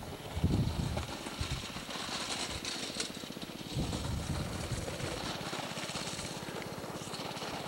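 Small go-kart engine buzzing at a distance as the kart laps a dirt track, a rapid even pulsing throughout. Wind buffets the microphone in low gusts near the start.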